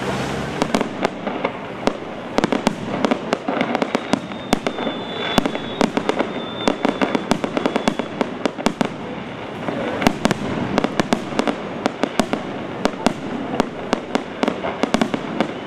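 Fireworks display: a dense, continuous stream of bangs, pops and crackles from many shells bursting close together, with a thin high whistle lasting a couple of seconds near the middle.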